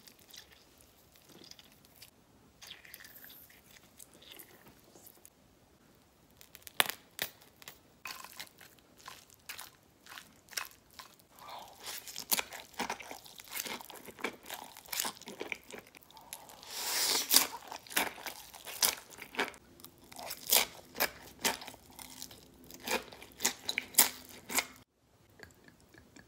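Close-up eating sounds: Green Takis rolled tortilla chips and green ramen noodles being crunched and chewed. The crunches start after a quiet opening of about six seconds, then come thick and fast, with a longer stretch of noodle slurping past the middle.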